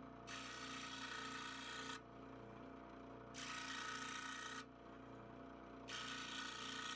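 Scroll saw running with a steady hum while its blade cuts through a thin wooden strip three times, each cut a burst of sawing noise lasting one to two seconds.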